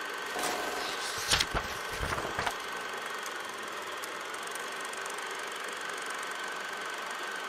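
Steady mechanical hum with a thin high whine running through it, and a few short knocks and thumps between about one and two and a half seconds in.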